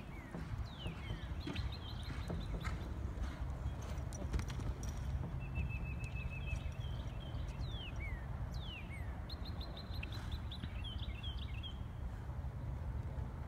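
A horse's hooves clip-clopping on the ground, over a steady low rumble, with high chirps and descending whistles scattered through.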